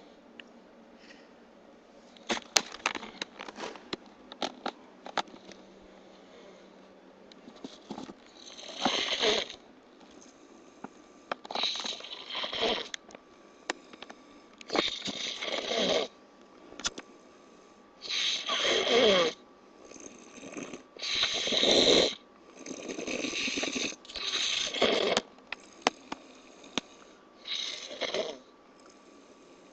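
A man snoring loudly, one long snore about every three seconds from about eight seconds in, with a few light clicks and knocks before the snoring starts.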